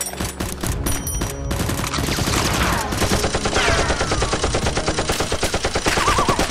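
Rapid automatic gunfire sound effects for a toy-blaster shootout. A few single shots come in the first second and a half, then a continuous stream of about ten shots a second starts, with a few falling whizzes mixed in.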